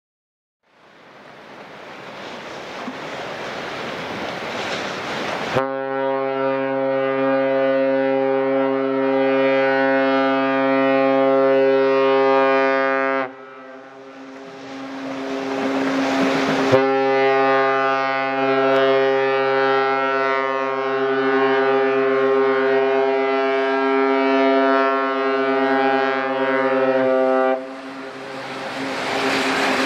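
Cruise ship's horn sounding two long, steady blasts, the first about eight seconds and the second about eleven, over a steady rushing noise.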